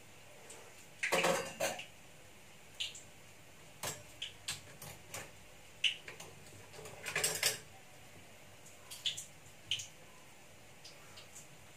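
Kitchen clatter: scattered clinks and knocks of utensils and dishes, denser about a second in and again around seven seconds in, with light ticks between.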